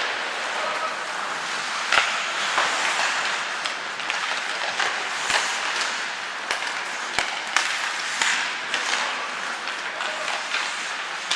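Ice hockey play on a rink: a steady hiss of skates on ice and arena noise, with scattered sharp clacks of sticks and puck, about eight in all.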